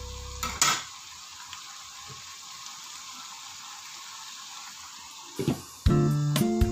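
Sliced bottle gourd and carrots sizzling steadily in a wok, as an even hiss. There is a short clatter about half a second in, and a knock near the end as the glass lid goes on.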